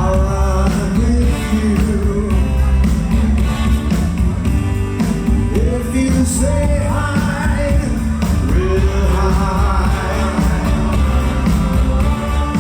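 Music with a singing voice over a steady bass line and beat.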